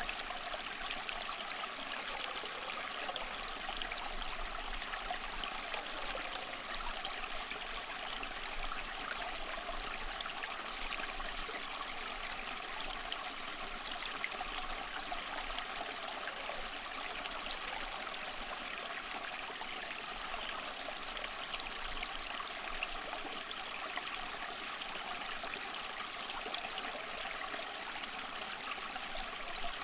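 A stream of running water flowing and splashing steadily, a continuous babbling rush with no pauses.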